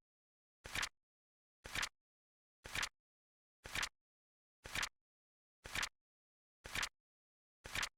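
Flip-clock countdown timer's sound effect: a short double click, like a flap falling, once every second, evenly, with silence between.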